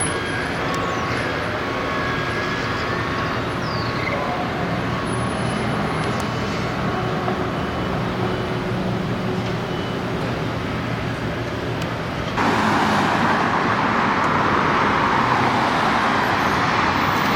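Steady road traffic noise with a low engine hum; about twelve seconds in it abruptly turns louder and hissier.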